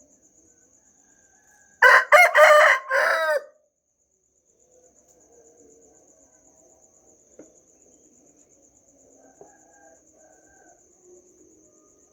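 A rooster crows once, a loud cock-a-doodle-doo of about a second and a half, starting about two seconds in. Crickets chirp faintly and steadily behind it.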